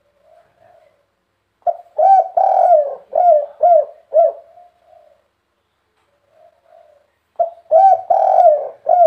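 Spotted dove (tekukur) cooing, first softly, then two full song phrases. Each phrase is a short lead note, a longer drawn-out coo, then three short 'kuk' notes: the 'kuk 3' song type.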